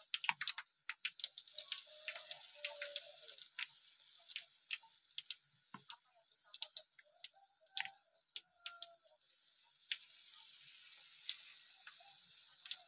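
Peanut rempeyek batter frying in hot oil in a wok: a faint sizzle with many irregular small pops and crackles.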